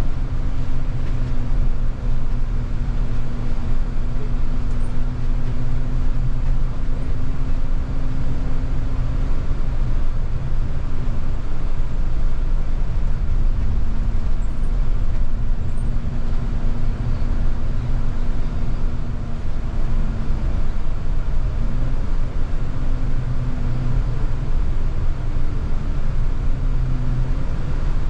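Double-decker bus in motion, heard from inside on the upper deck: a steady engine and road rumble. Over it a whine holds one pitch for about ten seconds, drops away, then returns and slides up and down several times in the second half.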